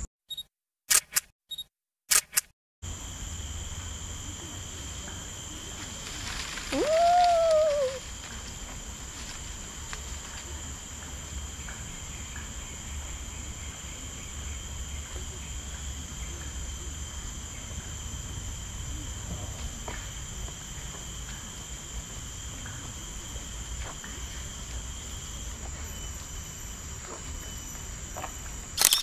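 Forest ambience: low wind rumble on the microphone under a steady high drone. The sound drops out with a few sharp clicks in the first seconds. About seven seconds in, a single short call sweeps up and then falls in pitch.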